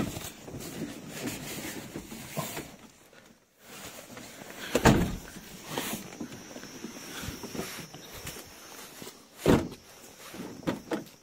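Footsteps and a few scattered thumps or knocks, the loudest about five seconds in and about nine and a half seconds in, over a low noisy background.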